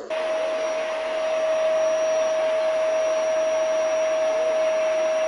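A household appliance's electric fan motor running steadily: an even rush of air with a constant whine over it, switching in and cutting off abruptly.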